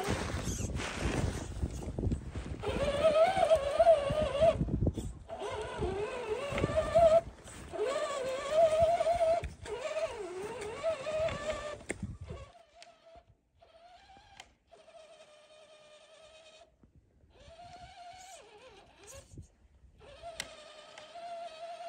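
Electric drive motor and gears of a 1/10-scale RC crawler whining as it pushes through snow, the pitch wavering up and down with the throttle. For about the first half a louder rushing noise goes with it; after that the whine comes quieter, in short bursts with pauses between.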